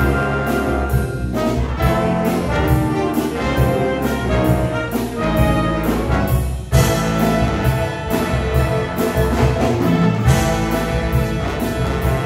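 Live high-school jazz big band playing: saxophones, trombones and trumpets over drum kit and bass guitar, with a steady beat. A little under seven seconds in the whole band comes in with a loud accent.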